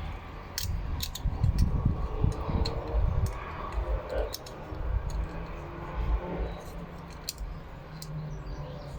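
Small metal parts of a door lock handle clicking and scraping as they are handled, turned around and fitted back together, with scattered sharp clicks.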